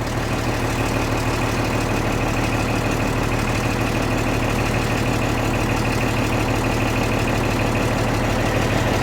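Diesel engine of a large tri-axle truck running steadily at low speed, with a thin steady high whine over the engine note.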